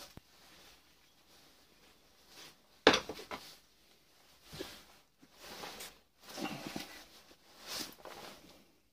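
Hands and a tool working on a small motor armature on a workbench as its copper windings are stripped out: one sharp clack about three seconds in, then scattered scraping and rustling.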